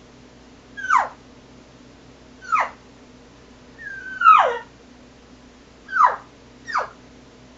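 Cow elk call blown as general cow talk: five short mews, each sliding down in pitch, the third a little longer with a level start before it drops, the last two close together.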